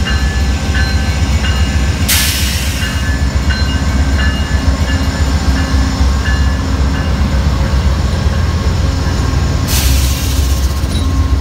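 Two Amtrak GE P42DC Genesis diesel locomotives passing close by, their engines a steady low rumble. A grade-crossing bell dings about every 0.7 seconds and stops about two-thirds of the way through, and there are two brief bursts of hiss, about two seconds in and near the end.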